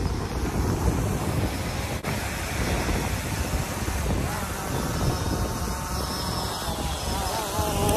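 White quadcopter drone's propellers whining as it hovers close by, its pitch wavering, under heavy wind rumble on the microphone.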